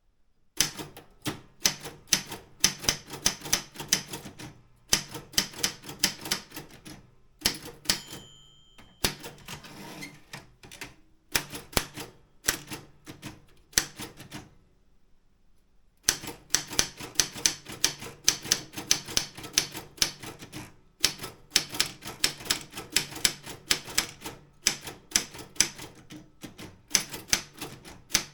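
Optima M16 manual typewriter being typed on: fast runs of keystrokes, the type bars striking the platen. A short ring of the margin bell comes about eight seconds in, and the typing stops for about two seconds halfway through.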